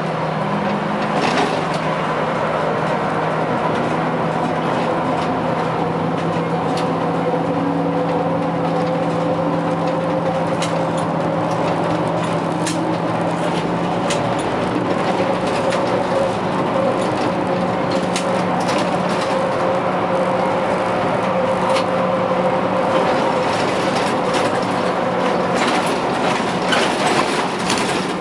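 Škoda 15TrM trolleybus driving at street speed, heard from the cab: a steady hum with a few held tones from its electric drive and auxiliaries, over tyre and road noise, with occasional sharp clicks.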